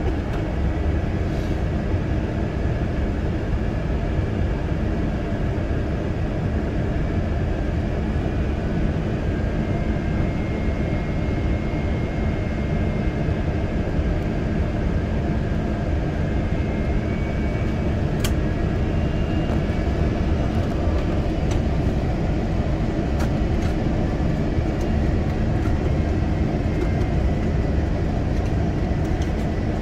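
Steady cabin noise inside an Airbus A350-900 airliner in flight at low altitude: a constant rumble of engines and airflow with a faint steady hum. A single faint click about 18 seconds in.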